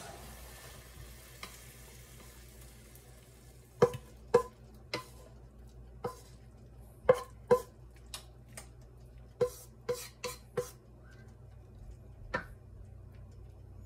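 Spatula knocking and scraping against a nonstick frying pan as sautéed greens are pushed out onto a plate: about a dozen sharp knocks, each with a brief ring, after a faint sizzle dies away.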